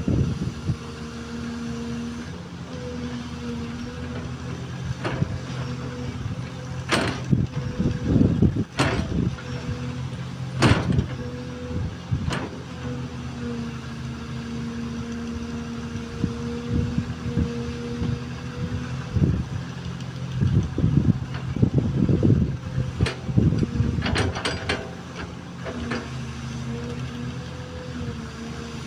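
XCMG XE215C excavator's diesel engine running steadily under working load. Several sharp metallic knocks stand out, clustered a third of the way in and again near the end.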